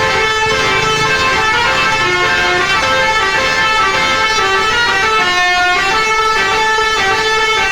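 A bus's 'telolet' musical horn playing a loud, continuous tune, several tones sounding together and changing every fraction of a second.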